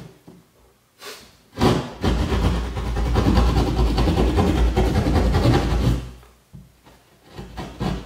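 Hand drywall saw (jab saw) rasping back and forth through drywall while cutting the opening for an outlet box. A stroke or two come about a second in, then about four seconds of steady sawing, a pause, and the sawing starts again near the end.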